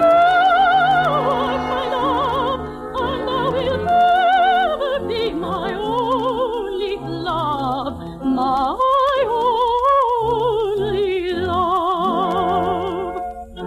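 Operatic solo voice singing a slow love song with wide vibrato, long held notes and sliding phrases, accompanied by an orchestra.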